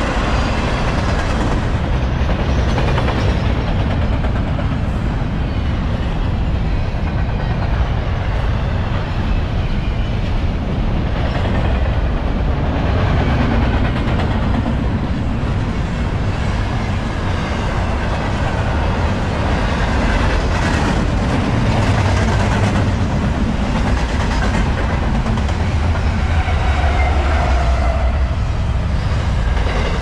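Double-stack intermodal container freight train rolling past: a loud, steady rumble and clatter of steel wheels on rail.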